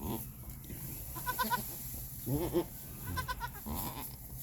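Goats bleating: three short bleats, two high-pitched and one lower one in between.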